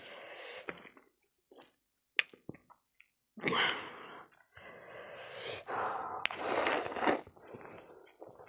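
Noodles slurped into the mouth in long noisy pulls, from about three and a half seconds in. A few sharp clicks of fork and spoon on a ceramic plate come before.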